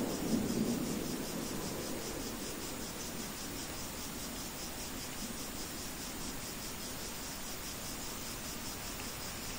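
Rain-sounds ambience: a steady hiss of rain with a fast, even high-pitched chirping pulse through it. A low thunder rumble fades out in the first second.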